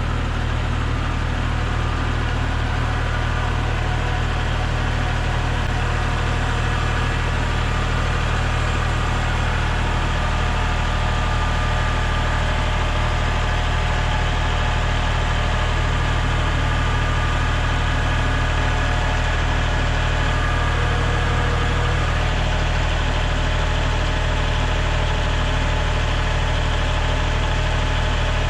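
An engine running steadily at a constant speed, with a deep, even hum and no change in pitch.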